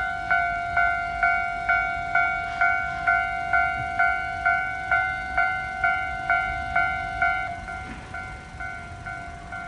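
Japanese railway level-crossing warning bell ringing its repeated 'kan-kan' strikes, about two a second. It drops to a softer volume about seven and a half seconds in.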